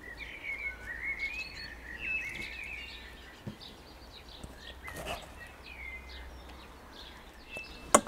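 A small songbird twittering and warbling for the first two and a half seconds, then a few scattered chirps, with a couple of soft knocks in between.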